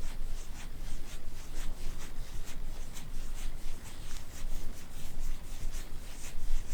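Kitten on a heated carpet making soft rhythmic rasping, rubbing strokes, about three a second, over a low steady rumble.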